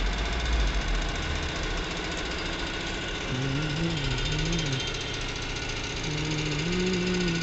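Steady, rapid mechanical rattle like a running engine, with a faint voice rising and falling twice in the second half.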